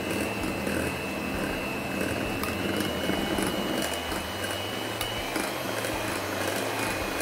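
Electric hand mixer running steadily, its twin beaters whipping cream in a glass bowl, with a steady high whine over the motor hum.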